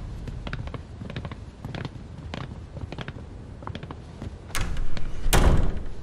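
Footsteps on a hard floor, a series of sharp clicks, then a door shutting with a heavy thud about five seconds in.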